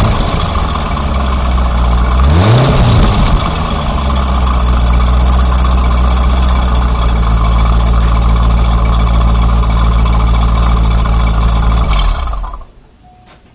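Corvette V8 through its factory exhaust, revs settling down. A single quick throttle blip comes about two seconds in, then a steady idle until the engine is switched off and cuts out abruptly near the end.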